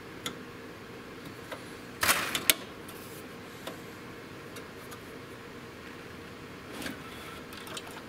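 Handling clicks and knocks of a plastic ejector lever and a circuit-board module being worked loose in a server's sheet-metal card slot, with a loud cluster of clicks about two seconds in and a softer scrape near the end.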